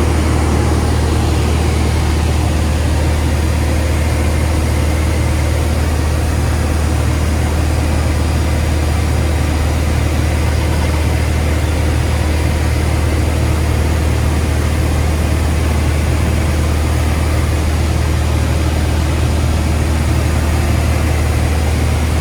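Cabin noise of a Beechcraft Bonanza in flight: the single piston engine and propeller give a loud, steady low drone that holds unchanged throughout, with a rushing hiss of airflow over it.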